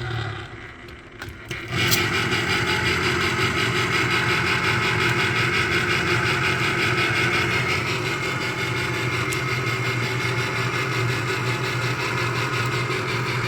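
Electric can opener motor running as it cuts open a can of pasta sauce. It stops briefly about a second in, then restarts and runs steadily until near the end.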